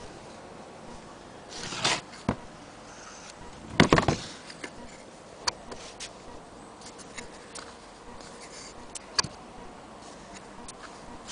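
Irregular clicks and knocks from handling an antique Willcox & Gibbs sewing machine, with a brief rustle about two seconds in and a louder clatter of knocks about four seconds in, then scattered single clicks.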